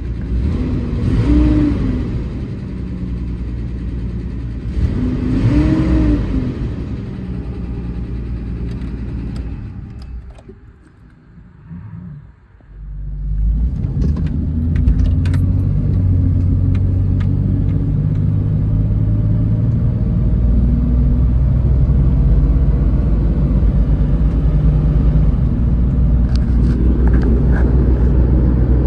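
Toyota Land Cruiser FJ62's straight-six engine revved twice, each a quick rise and fall in pitch. After a short quiet drop about halfway through, the engine runs steadily under way, with road and tyre noise as the truck drives.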